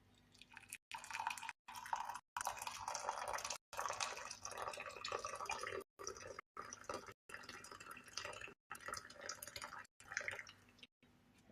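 Water being poured and splashing into a container, in several spells broken by abrupt short silences.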